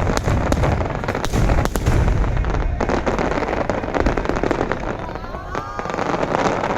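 Aerial fireworks bursting in rapid succession: deep overlapping booms with many sharp cracks and crackling, thinning out somewhat toward the end.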